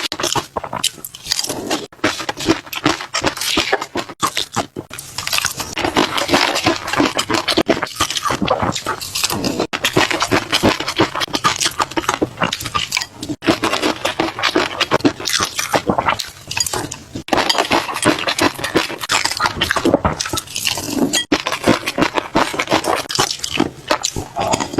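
Close-miked eating: a person chewing and biting fish roe, with dense, rapid crackly clicks and wet pops and a few short pauses.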